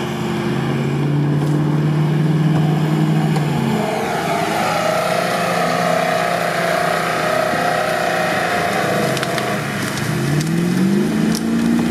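Engines of 4x4 off-roaders, a UAZ and a Lada Niva, working through deep mud. A steady engine note holds for the first few seconds, then changes. Near the end an engine revs up with a rising pitch.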